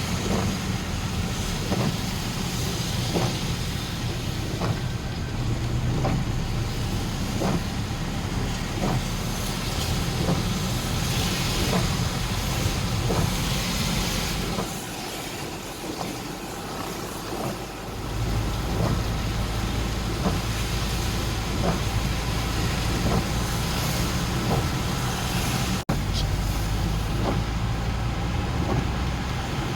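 A motor vehicle's engine running, with a steady hiss and a faint regular ticking about once a second. The low engine rumble drops away for a few seconds about halfway through, then returns.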